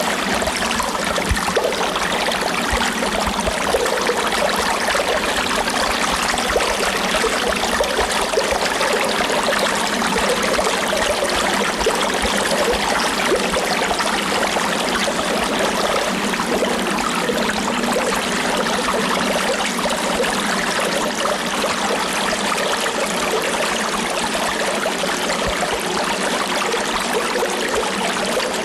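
River stream flowing steadily, a continuous rushing and trickling of water over a natural streambed.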